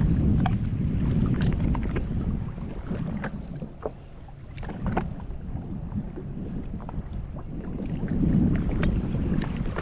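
Wind buffeting the microphone and water lapping against a jet ski's hull, a low rumble that swells and eases, with scattered small clicks and splashes over it.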